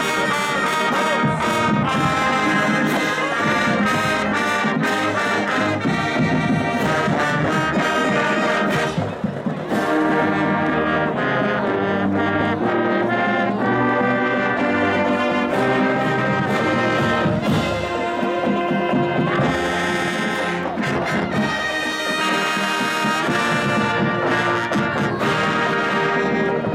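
College marching band playing a tune on the march, with loud brass and drums keeping the beat. The sound drops off briefly about nine seconds in, then the band plays on.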